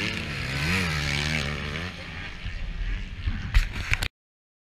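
Motocross bike engine revving, its pitch rising and falling for about two seconds, then fading into a rougher noise with a few sharp thumps; the sound cuts off abruptly about four seconds in.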